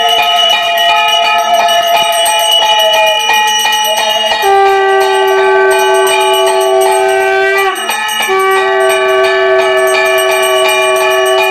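A brass puja hand bell rung continuously with rapid strikes during worship, over long steady blasts of a conch shell. The conch's pitch drops a little about four seconds in, and it breaks off for a breath about eight seconds in before sounding again.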